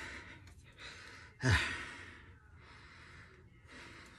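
A man's heavy sigh about one and a half seconds in, falling in pitch, followed by fainter breathing out.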